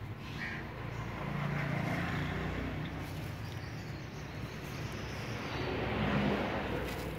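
Outdoor background noise: a low rumble with a hiss over it that swells twice, once about two seconds in and again near the end.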